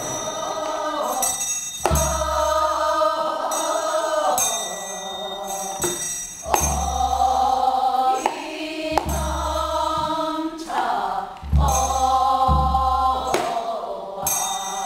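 Women's voices singing a Korean traditional song together in long held notes, accompanied by a buk barrel drum that sounds a deep beat about five times at uneven intervals.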